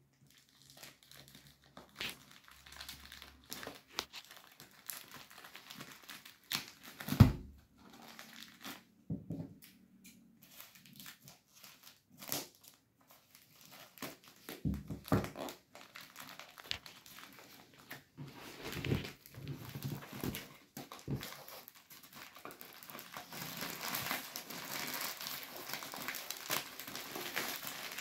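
Plastic courier mailer bag crinkling and rustling as it is handled and torn open, in irregular bursts with a louder thump about seven seconds in. The rustling becomes steady and denser over the last few seconds.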